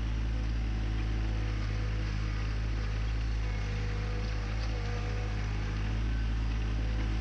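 John Deere 2025R compact tractor's three-cylinder diesel running steadily with a deep drone as it tows a rock rake.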